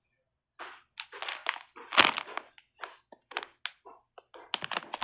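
Crinkly plastic packaging bag being squeezed and handled, a run of irregular crackling rustles that starts about half a second in and is loudest at about two seconds.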